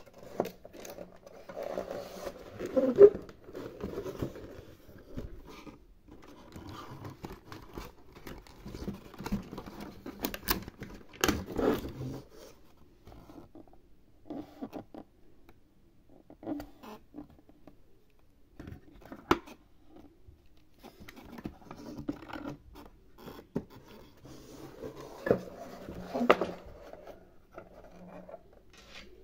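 Hands handling small plastic doll-house toy pieces and their clear plastic packaging: irregular clicks, taps and scraping, with a few sharper clicks.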